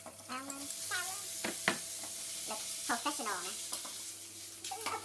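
Beef slices hit a hot oiled pan and sizzle. The sizzle starts right at the beginning, and chopsticks stir the meat with a few sharp clicks against the pan.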